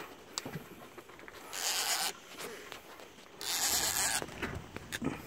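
Fishing reel's drag buzzing as a hooked fish pulls line off, in two runs of about a second each, a couple of seconds apart.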